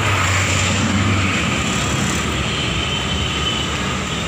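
Steady road traffic noise on a busy street. A low engine drone is heard under it and stops about a second in.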